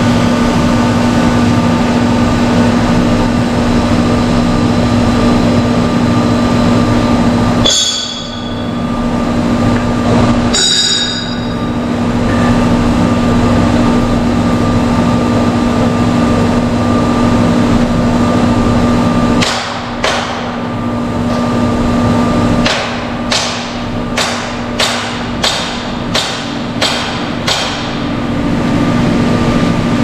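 Steady, loud drone of plant machinery with two short high squeals about a third of the way in. Near the end comes a run of about eight hammer blows, roughly one and a half a second.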